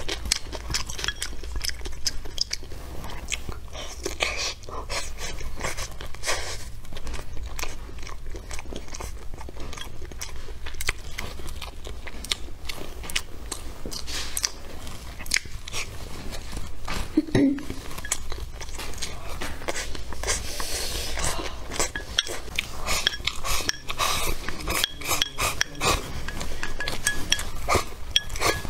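A person chewing mouthfuls of rice and vegetables close to the microphone: continuous wet chewing with many sharp, irregular crunching clicks.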